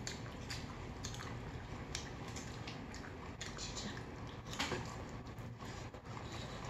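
People chewing food close to the microphone, with scattered light clicks and taps, a few of them louder about four and a half seconds in.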